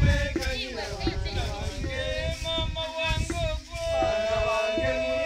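Music with a man singing over a steady beat, with a long held note near the end.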